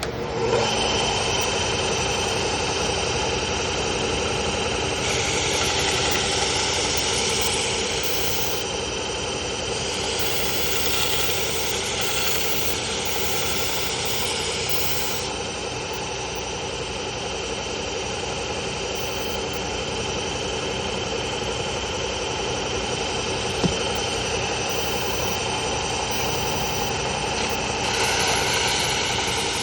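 Bucktool 1-by-30-inch belt sander running steadily on a Cubitron 120-grit belt. A brighter, hissing grind rises over it for long spells, about five to fifteen seconds in and again near the end, as a garden-shear blade is sharpened against the belt.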